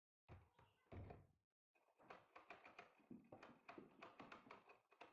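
Faint clicks and knocks of a main-door lock being worked, with a couple of heavier knocks early on and a quick run of clicks from about halfway.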